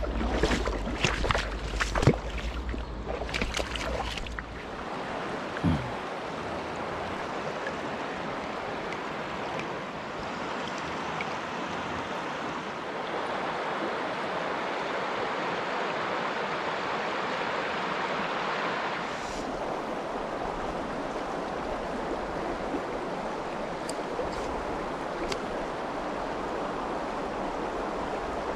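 A mountain stream's water running steadily over rocks. In the first few seconds there are sharp knocks and clicks of handling close to the microphone.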